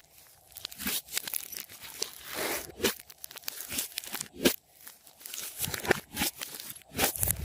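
Glossy slime and candy being worked by hand: irregular crackling, crunching and tearing, broken by sharp snaps.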